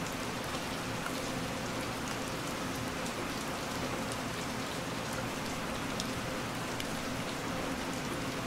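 Steady heavy rain falling and pattering on a window pane, with many small ticks of single drops striking the glass.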